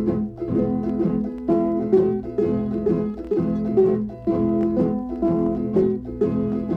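Instrumental hymn music played on plucked string instruments: a steady, even run of picked notes over a strummed accompaniment, with no singing.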